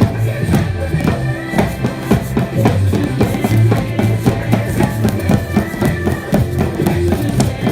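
A recorded song with bass and guitar, with a group striking Pilates balls like drums in time with it: many quick, dense beats over a steady bass.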